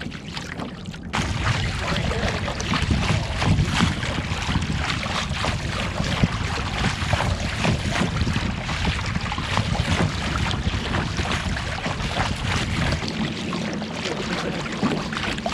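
Wind noise on the microphone, with water lapping and splashing against a kayak, starting up about a second in.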